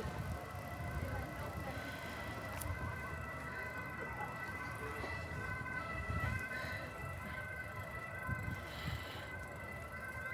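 Wind and rolling noise on a moving bicycle's microphone, gusting now and then, with a steady high-pitched whine of several tones held underneath.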